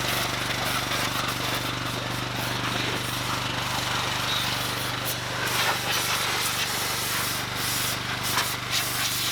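Pressure washer running steadily and spraying water, a constant low hum under a dense hiss.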